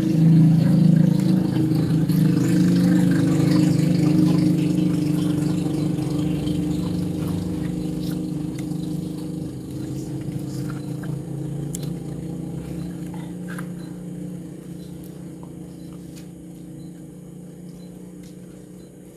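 A steady engine hum that fades slowly and evenly, as from a motor vehicle running and moving away. A few faint small clicks of eating come through once it has died down.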